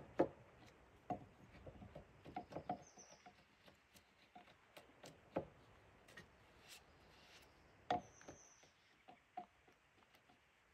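Faint, irregular scraping and light knocks of a hand tool working the end of a wooden beam at its half-lap joint.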